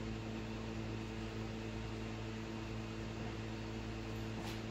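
Steady electrical hum over a faint hiss of room noise, with one faint tick near the end.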